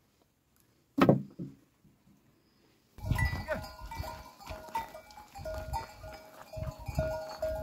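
A single thump about a second in, then from about three seconds a herd of goats on the move, with many neck bells clanking and ringing irregularly.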